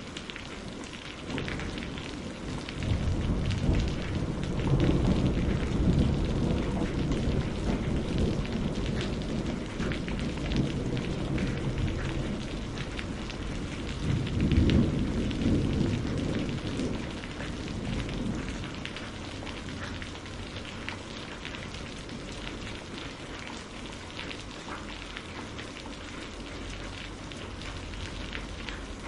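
Steady rain falling, with fine patters throughout. Two long low rumbles of thunder swell and fade, the first starting about three seconds in and the second about fourteen seconds in.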